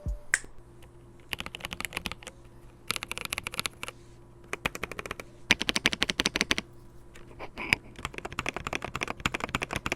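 MageGee Sky61 mechanical keyboard typed on fast, fitted with smaller, cheaper keycaps. The keystrokes clatter in several quick bursts with short pauses between them.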